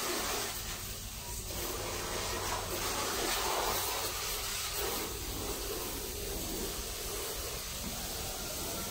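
Vacuum cleaner running steadily, a continuous hissing rush of air over a low motor hum.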